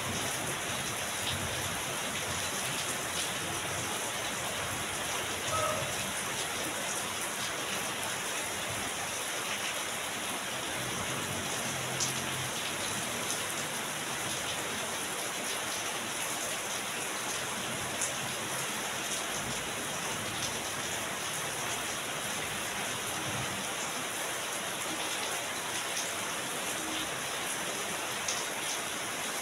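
Steady rain falling: an even, unbroken hiss with a few sharper drop ticks now and then.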